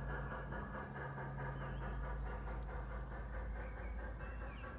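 Garden-scale model train running on outdoor track, its motor humming and wheels rattling on the rails, the hum fading out partway through as it moves away. Birds chirp a few times.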